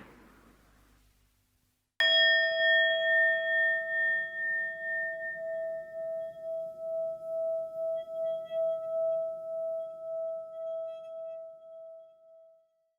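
A low rumble dies away in the first second or so. About two seconds in, a single struck metal tone rings out and decays slowly over about ten seconds, its loudness wavering as it fades.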